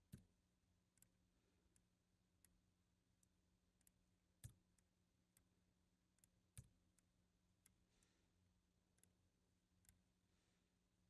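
Near silence broken by scattered faint clicks of a computer mouse and keyboard being worked, the loudest right at the start and about four and a half and six and a half seconds in, over a faint steady low hum.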